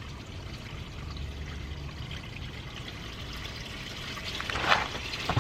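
Used engine oil (Ford synthetic-blend 5W-30 with 2,200 miles on it) pouring steadily from the oil pan drain hole of a 5.0 Coyote V8 into a drain pan, with a short louder noise near the end.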